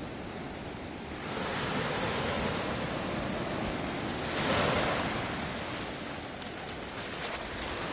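Sea waves washing in: a wash of surf that builds about a second in, is loudest near the middle, then eases off.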